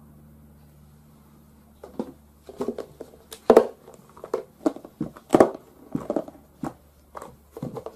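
Plastic clip-lock food storage box being handled and opened: a string of irregular plastic clacks and knocks that starts about two seconds in, after a faint steady hum.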